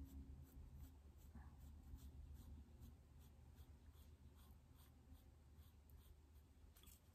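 Faint scratching of a pencil on drawing paper, a steady run of short sketching strokes, a few each second, as the outline of an eye is drawn.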